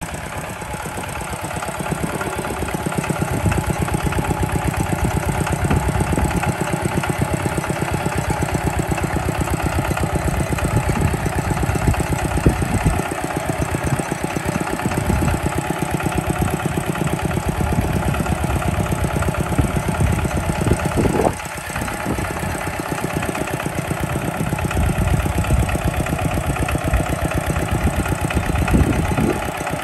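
Two-wheel walking tractor's single-cylinder diesel engine chugging steadily under load as it pulls a plow through rice-field soil. It dips briefly in loudness a little after two-thirds of the way through, then picks up again.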